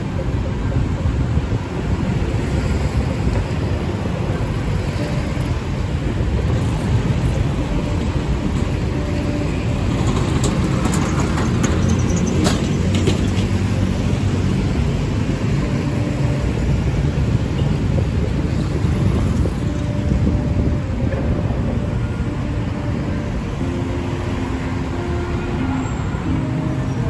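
Busy road traffic: a steady rumble of passing motor vehicles, swelling louder about halfway through as traffic goes by close.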